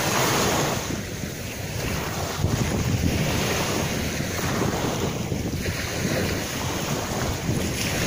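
Small sea waves breaking and washing up over a shell-grit beach, one after another, with wind buffeting the microphone.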